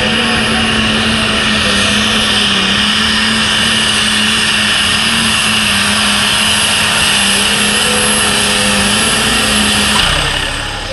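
Pulling tractor's engine running flat out at a steady pitch as it drags the brake sled, with a high whine over the top. A little before the end the throttle comes off and the engine note drops away as the pull ends.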